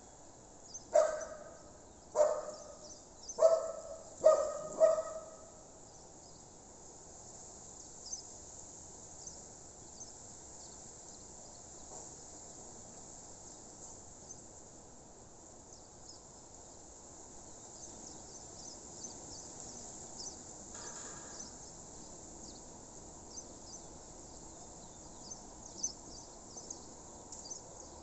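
A dog barks five times over the first five seconds, then stops, over a steady background of crickets chirping.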